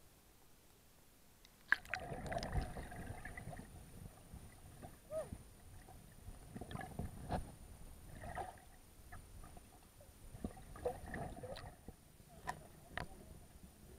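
Muffled underwater sound: low rumbling water movement in several surges, with scattered sharp clicks and knocks.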